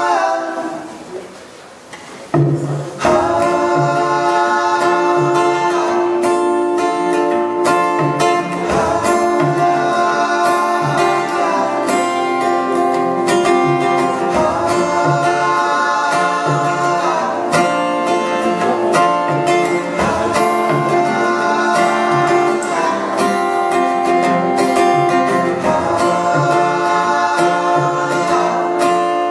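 Steel-string acoustic guitar played live. The sound drops low for the first couple of seconds, then a strummed chord pattern comes in about three seconds in and carries on steadily.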